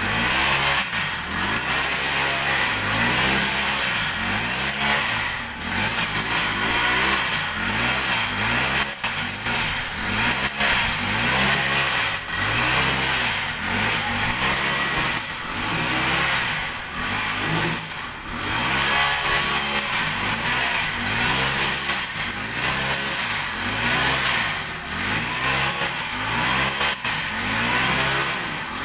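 Petrol brush cutter (grass trimmer) running while cutting grass. The engine revs up and eases off again about every second and a half as the head swings through the growth.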